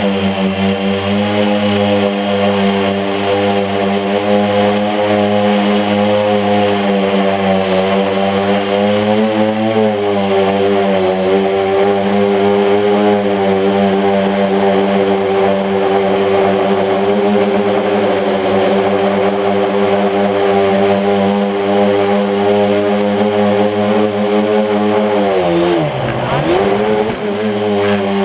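Electric motors and propellers of a mini FPV tricopter, a steady multi-tone hum whose pitch wavers up and down with the throttle, dropping steeply and climbing back near the end. One motor has a bent shaft, which sets the craft vibrating.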